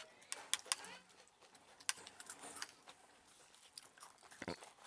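Eating sounds at a shared meal: scattered sharp clicks and light clatter, as of cutlery and dishes, spread irregularly through a quiet stretch.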